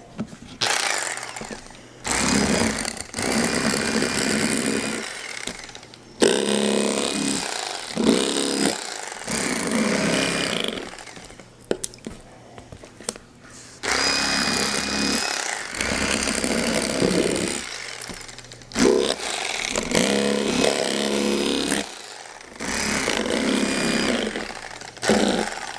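Electric fillet knife running in runs of a few seconds with short pauses, its motor whine steady while the reciprocating blades cut through largemouth bass fillets.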